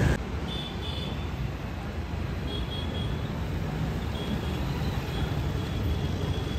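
Hero Splendor motorcycle being ridden along a road, its small single-cylinder engine running through an aftermarket open air filter, with steady road traffic noise around it.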